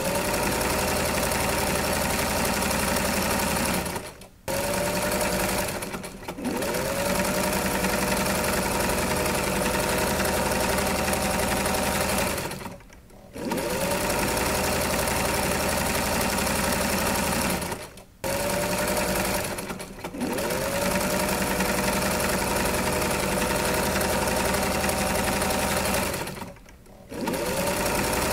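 Electric sewing machine running in long steady stitching runs. It stops briefly and starts up again about six times.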